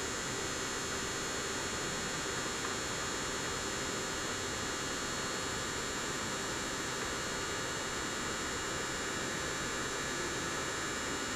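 Hot-air heat gun blowing steadily: an even rushing hiss with a faint steady hum. It is heating the board to melt the solder under a surface-mount regulator chip so the chip can be lifted off.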